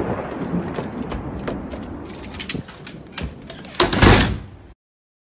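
Thunder rumbling and fading away just after a very close lightning strike, with scattered knocks and clicks of handling. A loud bang comes about four seconds in, then the sound cuts off suddenly.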